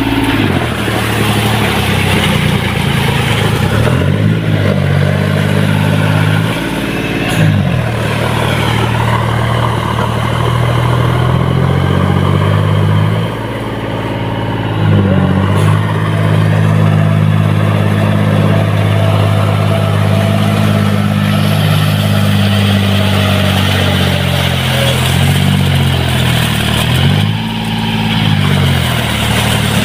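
John Deere tractor's diesel engine running hard as its cage wheels work through deep paddy-field mud. The engine note dips and rises in pitch several times as the throttle is eased off and opened up again.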